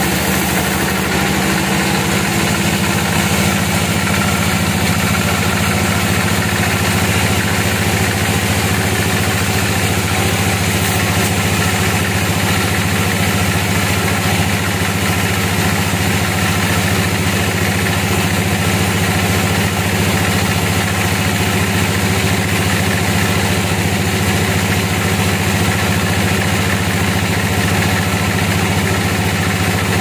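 Band sawmill running steadily while its blade cuts lengthwise through an old, barkless teak log. The steady machine drone holds unchanged throughout.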